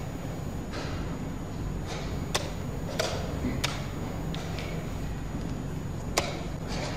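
Wooden chess pieces being set down and a chess clock being pressed during a fast blitz game: four sharp clicks, three close together in the middle and one near the end, with a few softer knocks, over a steady background hum.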